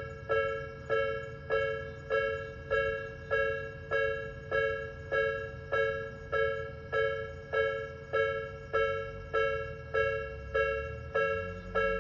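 Japanese railway level-crossing warning bell ringing: an electronic two-tone "kan-kan" chime repeating steadily, just under two strikes a second, each strike ringing and fading before the next. A low rumble underneath grows louder near the end.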